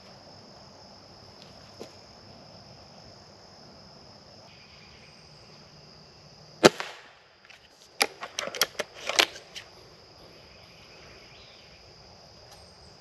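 A single sharp crack about halfway in: one shot from a Gamo Swarm Whisper .22 break-barrel air rifle. A second later comes a quick run of sharp clicks and rustles lasting under two seconds, over a steady high insect drone.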